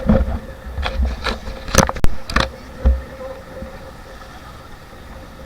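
A series of sharp knocks and dull thumps over the first three seconds, like an action camera being handled and bumped, then a steady low hiss with a faint constant hum.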